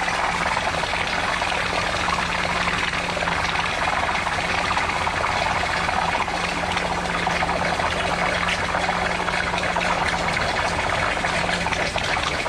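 Pressure washer lance spraying a jet of water onto wet block paving, a steady hiss and splash as mud is rinsed off, with the pressure washer's engine running steadily underneath.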